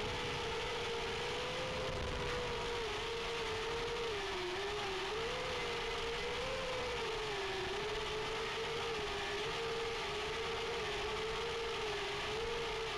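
FPV racing quadcopter's motors whining, the pitch rising and falling continually with the throttle, over a steady hiss.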